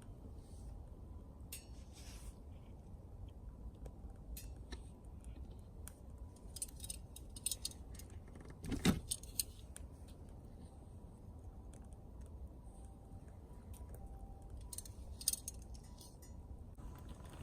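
Scattered light metallic clinks and short scrapes, in small clusters, with one sharper hit about nine seconds in, over a steady low rumble.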